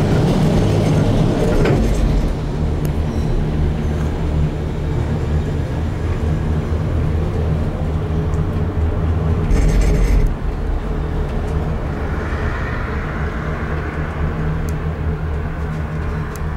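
Gondola cabin riding along its cable: a steady low mechanical rumble, with a brief louder rattle about ten seconds in.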